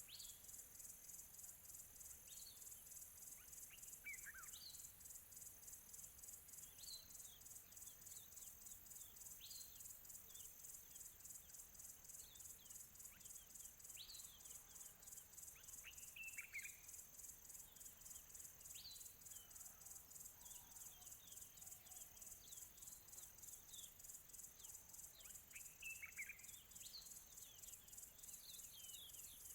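Faint birds chirping: short, quick calls that sweep downward in pitch, one every second or two, a few louder ones about halfway and near the end. Behind them a steady, high, fast-pulsing insect chorus.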